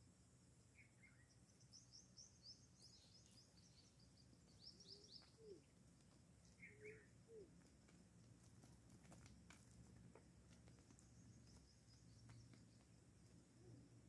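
Faint birdsong: two quick runs of short, high chirps in the first half, with a few lower calls between them, over a low steady background hum.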